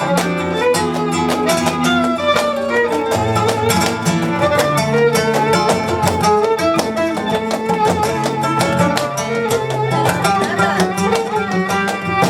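Flamenco fandango on guitar and violin, with rapid strummed chords and a sustained violin melody over many sharp percussive clicks.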